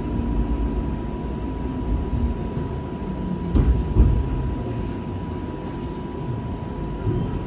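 Flexity Outlook streetcar rumbling along, heard from inside the car, with a steady high tone running under it. Two short knocks come a little past halfway through.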